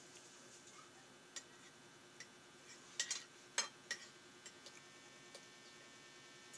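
Spoon and fork clinking against dishes while eating: a few light clicks spread out, with a cluster of louder clinks about halfway through.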